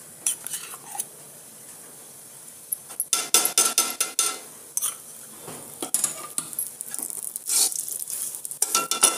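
Steel spoon and spatula clinking and scraping against a steel kadhai and ghee jar as ghee is spooned in and dry vermicelli is stirred. About three seconds in comes a burst of metal clatter with a ringing note, followed by irregular clicks and scraping.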